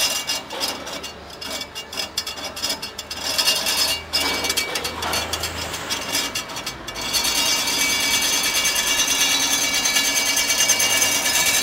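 Line straightening machine's rollers working a metal rod, with irregular metal knocking and rattling at first. About seven seconds in it gives way to a steady, louder running noise with high steady tones as the rod feeds through the rollers.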